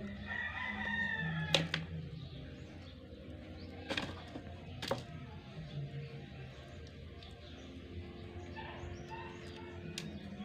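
Hands cleaning a freshly killed catfish with salt in a plastic basin: wet handling noise broken by a few sharp knocks, the loudest about a second and a half in and two more around four and five seconds in.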